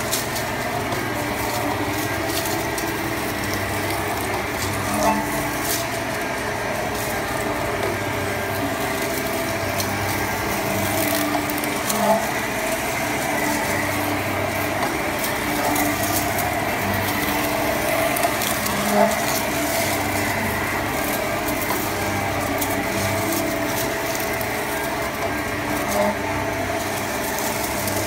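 Hydraulically driven split-frame pipe cold cutting and beveling machine running on a 30-inch, 60 mm-wall steel pipe: a steady mechanical drone with a pulsing low hum as the tool bit cuts the bevel, and a short knock about every seven seconds.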